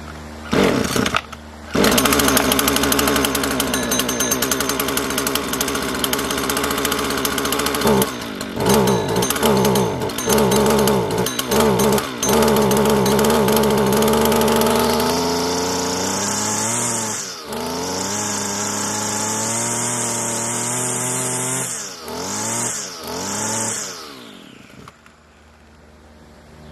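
Husqvarna 323L two-stroke string trimmer pull-started, catching about two seconds in. It then runs with several throttle blips and higher revs before it is shut off and dies away near the end. This trimmer has a freshly cleaned carburetor and an unclogged tank vent.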